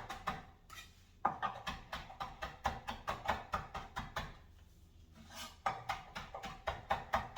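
Kitchen knife chopping fresh flat-leaf parsley on a cutting board: quick, even strokes at about five a second, in two runs with a pause of about a second between them.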